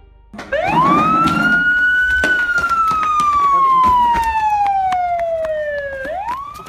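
Wailing siren: one long wail that rises over about a second and a half, falls slowly for about four seconds, then starts to rise again near the end. Sharp clicks are scattered through it.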